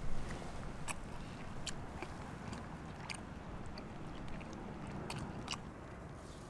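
A small dog chewing and crunching on pieces of smoked chicken fed to it by hand, with irregular sharp crunches.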